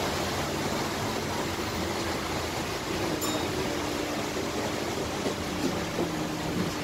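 Cabin noise aboard an Alexander Dennis Enviro400H hybrid double-decker bus: a steady rumble and hiss. About three seconds in, a faint steady whine from the electric drive joins it as the bus slows for a stop under regenerative braking.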